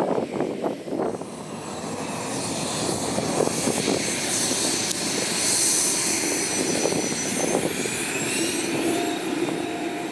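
Business jet's turbofan engines passing close by: a rushing noise with a high whine that slides slowly down in pitch, loudest around the middle.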